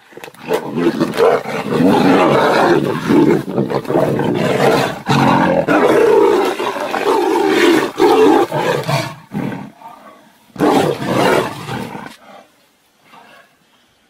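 Two tigers fighting, snarling and roaring loudly almost without a break for about nine seconds, then one more short burst of roaring about eleven seconds in.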